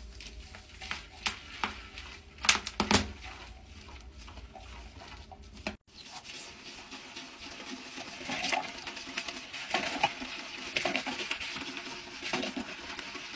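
Toilet brush scrubbing inside a toilet bowl full of cleaner and water, with wet swishing and scratchy brush strokes and a short break about six seconds in.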